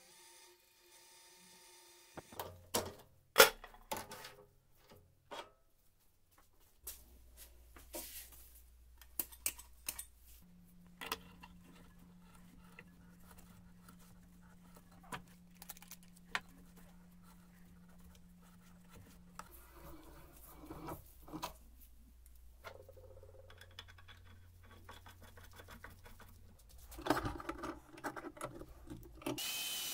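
Scattered clinks, knocks and scrapes of steel parts and tools being handled on a metal workbench, with a faint low hum in some stretches.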